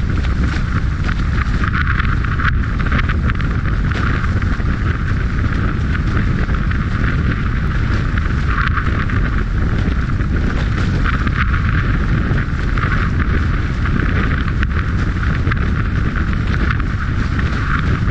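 Strong wind buffeting the microphone as a low, steady rumble, over the hiss and irregular splashes of water rushing past an F16 Viper catamaran's hulls and spray flying at speed.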